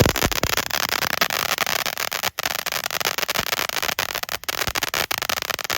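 Spider-Man fountain firework throwing out its crackle effect: a dense, rapid crackling of countless small pops, described as pretty strong crackle.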